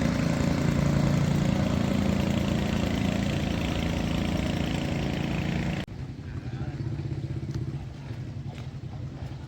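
A vehicle engine running steadily with road noise. About six seconds in, the sound cuts abruptly to a quieter, lower engine hum.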